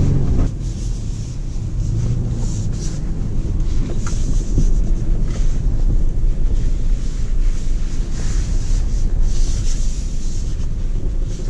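Toyota off-road vehicle driving over rough, frozen field, heard from inside the cab: a steady low rumble of engine and tyres, with irregular hiss on top.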